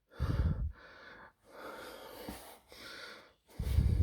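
A person breathing close to the microphone: a heavier breath puff about a quarter second in and another near the end, with fainter breaths between.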